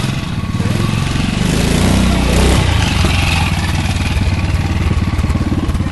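BSA 350 Otter trials motorcycle engine running with a rapid beat, the throttle opened about two seconds in as the bike climbs a bank, then held steady.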